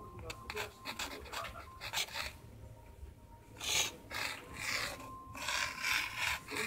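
A flat white strip swished and scraped across a wooden floor in rasping strokes: a quick run of short rubs, a brief lull, then louder, longer rubs in the second half.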